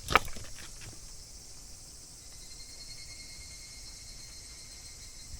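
A short sharp knock just after the start, with a few lighter clicks, over a steady high-pitched insect chirring that runs throughout.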